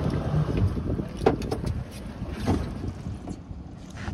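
Wind buffeting the microphone with a low rumble that slowly eases, with a few sharp clicks or knocks.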